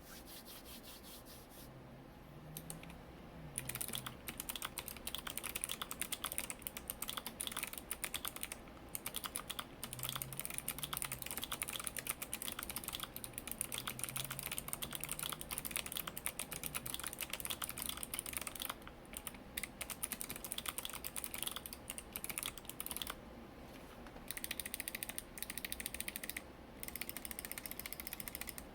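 Fast, continuous typing on an ID80 mechanical keyboard with stock NovelKeys x Kailh Box Pink switches, its stabilizers lubed and its case and spacebar dampened with foam. It starts about three and a half seconds in after a quieter opening, with a few brief pauses along the way.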